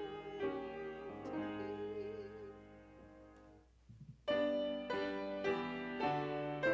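Closing line of a hymn: a singer holds the last note over sustained piano chords, and both fade away. After a short pause about four seconds in, the piano comes back in with a new series of struck chords.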